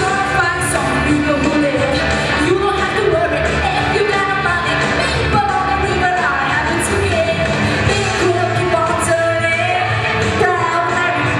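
A young female voice singing a pop song into a handheld microphone over amplified pop backing music.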